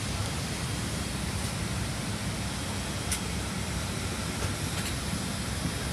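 Steady rushing cabin noise inside a Boeing 777 airliner, with a light click about three seconds in.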